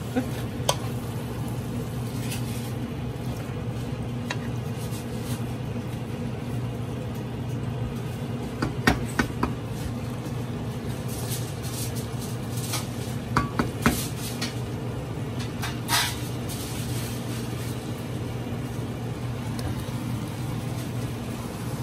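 Wooden spatula stirring a thick, chunky stew in a metal pot, with scattered knocks and scrapes against the pot, over a steady low hum.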